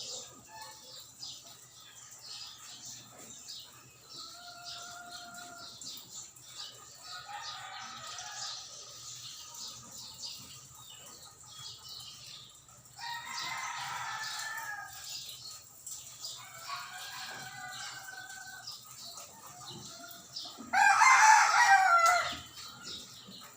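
Bird calls, several separate pitched calls of about one to two seconds each, the loudest about two seconds long near the end.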